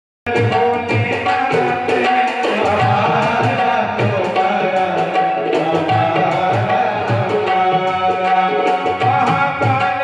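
Devotional bhajan music: tabla played in a steady rhythm under a sustained keyboard melody, with a man singing over it from about a second and a half in. The music starts just after a very brief gap at the beginning.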